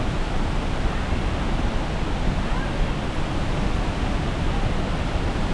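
Steady, loud rush of a large waterfall's falling water.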